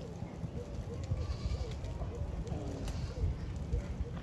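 Goats bleating, with short calls repeating, over wind rumbling on the microphone.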